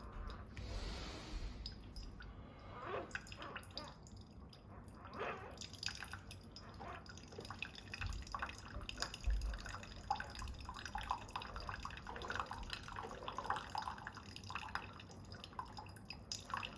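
Keurig K-Supreme single-serve coffee maker brewing a cup, coffee sputtering and dripping into the mug in irregular spurts: kind of puttering.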